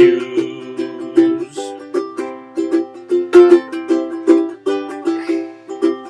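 Ukulele playing a steady, evenly repeated chord accompaniment. For the first second and a half a voice holds the sung word "shoes", then the ukulele plays on alone.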